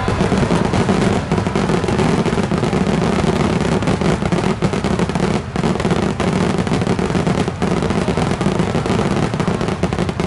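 Large aerial firework shells bursting in a rapid, dense barrage, the booms coming so close together that they run into one loud continuous rumble.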